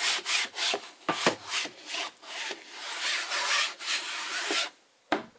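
A hand rubbing quickly back and forth over the back of a water-misted stretched cotton canvas, a rasping scrubbing in rapid strokes, done to tighten the loose fabric. The rubbing stops shortly before the end, followed by a single dull thump.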